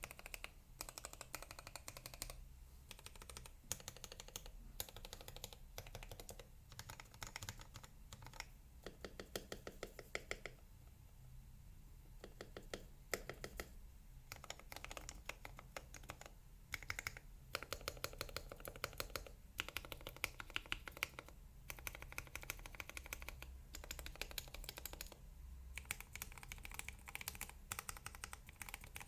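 Typing on a Womier HS87 mechanical keyboard with lubed and filmed Gateron Yellow linear switches and DSA keycaps: quick runs of keystrokes in bursts, broken by short pauses.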